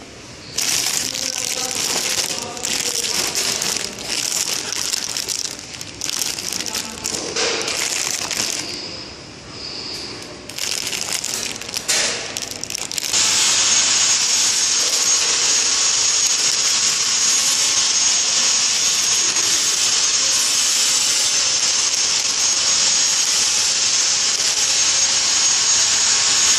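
Clear plastic film bags of packed leafy vegetables crinkling and rustling in irregular bursts as they are handled. About halfway through this gives way to a steady loud hiss with a faint high whine.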